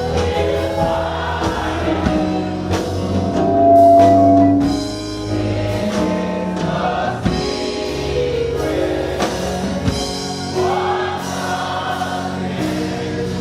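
Gospel worship song: a choir and congregation singing over a live band.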